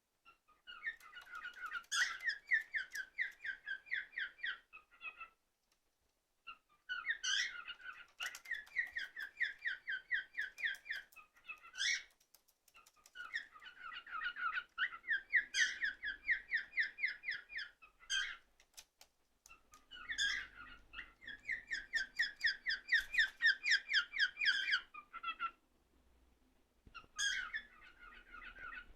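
Cockatiel chirping in rapid, evenly spaced trains, in bouts of about four to five seconds with short pauses between them and an occasional single louder call.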